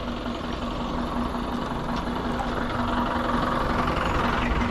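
Motorbike engine idling steadily, with a swell of louder noise in the last couple of seconds.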